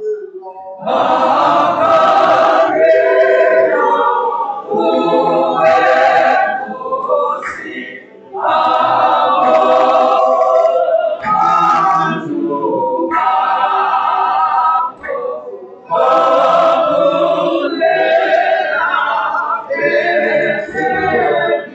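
Choir singing a hymn in long phrases, with short breaks between them about every seven seconds.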